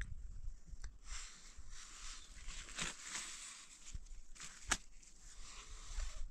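Faint sounds of eating by hand: a soft rustle of thin flatbread being handled and torn, with a few sharp clicks of a spoon against the metal pan, over a low rumble of wind on the microphone.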